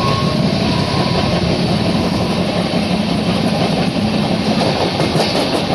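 Steady rumble of a train running along the track at speed, wheels on the rails, heard from inside a moving coach.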